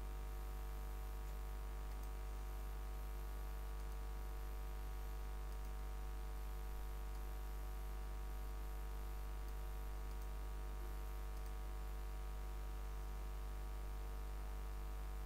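Steady low hum with many faint steady tones above it, and a few faint clicks.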